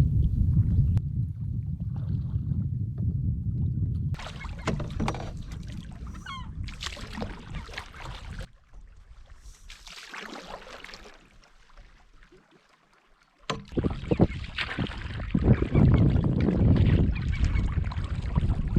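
Wind rumbling on the microphone over water sounds from a canoe out on a lake, with a few short bird calls coming through. The sound comes in several cut segments, with a much quieter stretch about halfway through before the wind noise returns.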